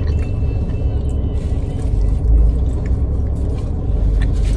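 Steady low rumble of road and engine noise inside a moving car's cabin, with a few faint clicks over it.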